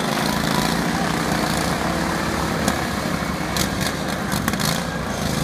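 Derby lawnmower engines running steadily at idle, with a few sharp clicks or knocks about three and a half to five seconds in.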